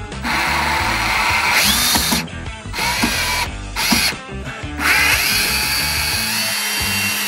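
Milwaukee M18 cordless drill driving a fastener into the workbench, running in several bursts with short stops between, its motor whine rising each time it spins up. It runs continuously for the last couple of seconds.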